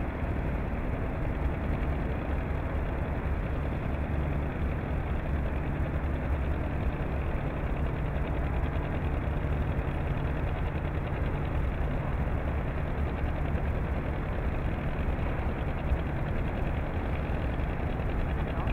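A steady engine drone with a low hum, unchanging throughout.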